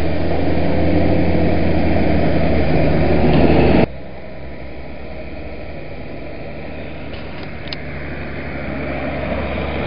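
Diesel tractor engines running as tractors drive past on a road. The steady engine hum is loud for about the first four seconds, then drops suddenly, and it builds again near the end as another tractor comes closer.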